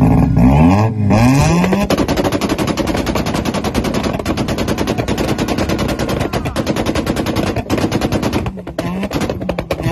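Mazda RX-7's rotary engine revving up, then held on a 2-step launch limiter: a dense, rapid-fire stream of exhaust pops and crackles. It breaks off briefly near the end and starts again.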